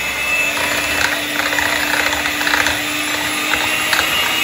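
Inalsa electric hand mixer running at a steady speed, its twin wire beaters whipping eggs and sugar in a bowl, with a few light clicks of the beaters against the bowl.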